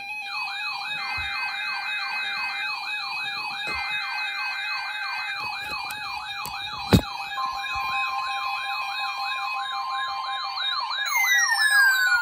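Several weather radio receivers (12-250, 12-262, 12-519) alarming together for the weather radio weekly test. The sound is a fast repeating whooping sweep, a warbling high tone and a steady low tone, under three short bursts of data tones from the test's SAME header. A further steady tone joins about seven seconds in, with a sharp click just before it and a falling sweep near the end.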